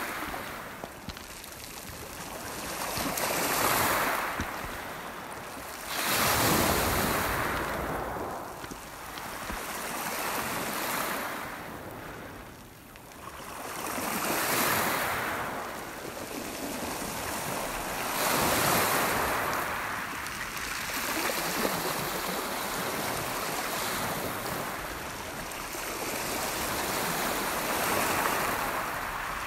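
Lake Superior waves breaking and washing up a gravel beach. The surf swells and falls back every few seconds.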